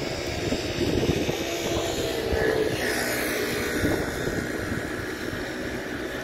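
GVB Siemens Combino tram pulling slowly into the stop, its electric drive humming with a brief higher whine partway through.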